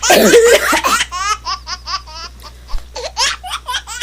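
A woman laughing hard: a loud burst at the start, then quick runs of short high-pitched 'ha' pulses that trail off.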